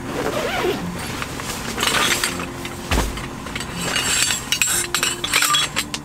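Scattered clinks and knocks of glass and tableware being handled, with a dull thump about three seconds in.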